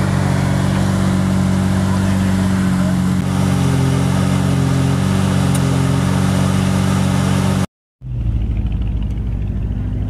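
Lamborghini Murciélago V12 engine running steadily at a constant pitch. About eight seconds in, the sound drops out for a moment and another recording of the engine running takes over.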